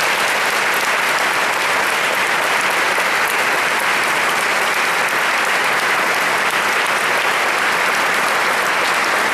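Audience applauding: dense, steady clapping that keeps an even level throughout.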